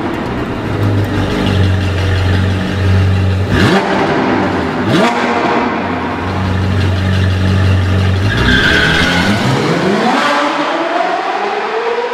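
Sports car engine sound effect: a steady low drone, two quick whooshes about four and five seconds in, then a long rising rev near the end.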